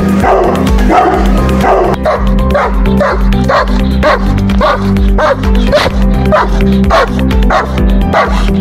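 A dog barking repeatedly, then from about two seconds in a Doberman barking in quick, rhythmic barks about twice a second, over a steady background music track.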